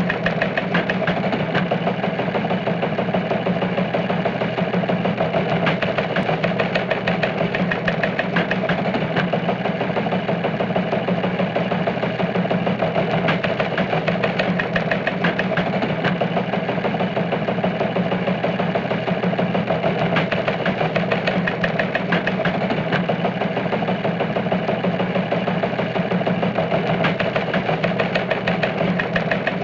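An engine idling steadily with a rapid, even beat.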